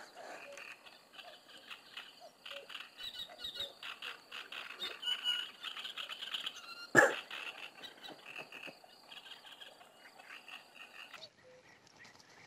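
Frogs croaking in a dense chorus of short repeated calls from the reeds. A single sharp knock about seven seconds in stands out loudest. The croaking drops away suddenly near the end.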